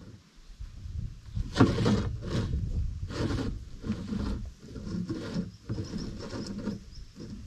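Steel roller shaft scraping and knocking against the rim and inside of a lick-roller tub as it is fitted in place, a run of irregular scrapes and rubs.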